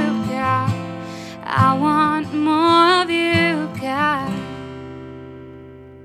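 The close of an acoustic worship song: a voice sings a last gliding phrase over acoustic guitar, then the final guitar chord rings on and fades away through the last two seconds.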